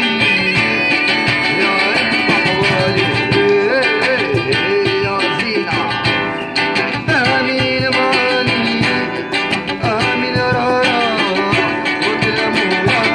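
Music with plucked guitar and a singing voice.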